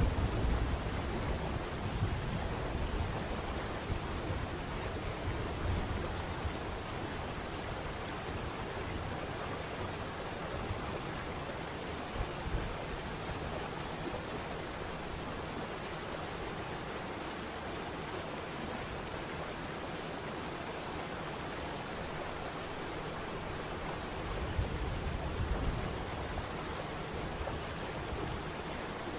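Waterfall running with a steady rush of water. A low rumble underneath fades over the first few seconds and swells again briefly near the end.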